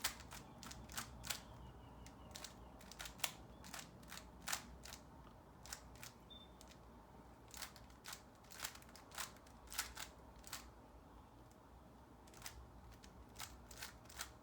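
Plastic Rubik's cube layers being twisted by hand: irregular clicks and clacks, often in quick runs of two or three, as the last layer is worked through. The clicking thins out for a couple of seconds about three quarters of the way in.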